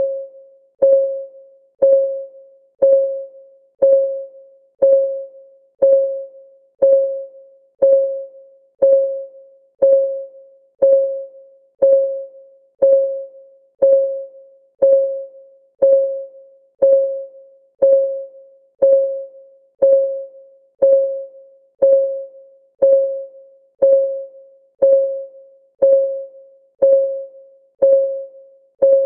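Countdown timer's synthetic clock tick, one per second, steady and even. Each tick is a short pitched tone that rings briefly and fades.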